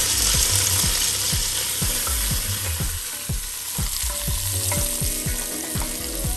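Chorizo, shallots and button mushrooms frying in a pot with freshly added butter, sizzling steadily while a wooden spoon stirs them.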